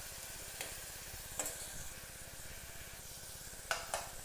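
Chopped onions and salt sizzling in hot oil in a pressure-cooker pot, with a few sharp clicks of a ladle against the metal as they are stirred.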